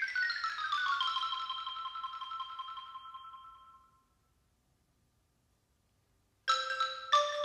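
Mallet percussion ensemble: a quick descending run of bell-like struck notes whose last notes ring on and fade out over about three seconds. After a couple of seconds of silence, new struck notes begin a fresh phrase near the end.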